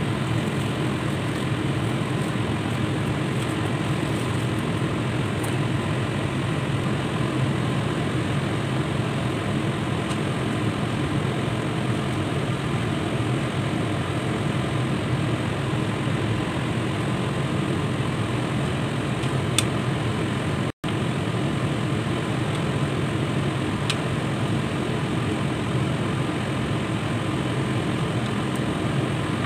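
Steady rushing noise of a pot of pork nilaga broth boiling on the stove. It breaks off for an instant about two-thirds of the way through.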